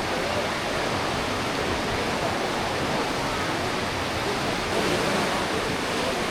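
The Aare River rushing through a rock gorge: a steady, even roar of fast-flowing water.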